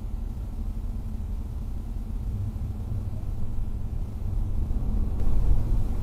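A car driving on a freeway, heard from inside its cabin: steady low road and engine rumble, getting louder near the end.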